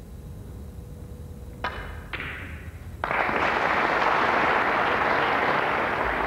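Two sharp clicks of snooker balls striking, about half a second apart, followed by audience applause that starts suddenly about three seconds in and holds steady.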